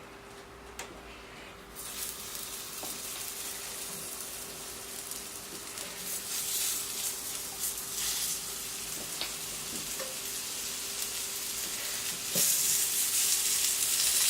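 Coconut oil sizzling on a hot plancha griddle, starting about two seconds in and getting louder near the end.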